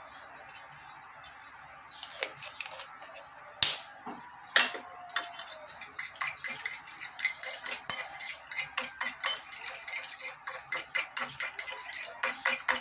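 Eggs being beaten with a utensil in a bowl: a few separate taps and a ringing clink, then from about five seconds in a quick, even clatter of several strokes a second.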